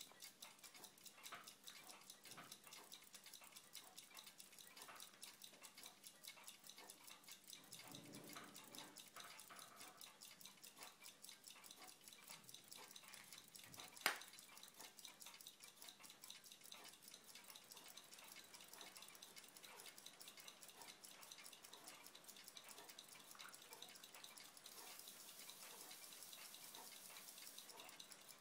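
Faint, rapid, even ticking of a Moritz Großmann 3955 watch movement running on its balance, with one sharper click about halfway through.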